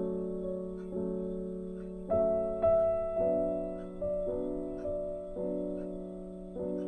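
Background piano music: sustained chords struck about once a second, each fading before the next.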